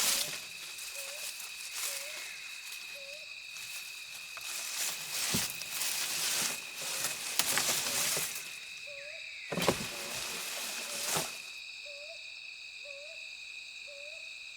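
Asian elephant stripping and chewing teak bark: irregular sharp cracks and snaps, thickest in the middle, then a couple more about ten seconds in. Underneath, insects drone steadily and a bird gives a short hooting note about once a second.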